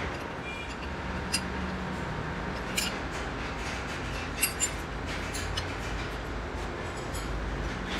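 A few sharp metallic clinks and taps as a lathe tool bit and tool post are handled and adjusted, two of them close together about halfway, over a steady low workshop hum.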